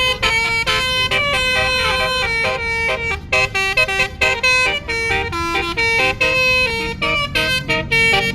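Basuri "telolet" multi-tone air horn on a bus playing a fast melody of short notes that change pitch every fraction of a second, over a low rumble.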